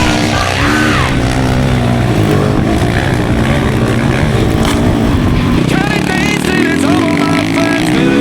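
Dirt bike engines running and revving, their pitch rising and falling over and over as the bikes are ridden.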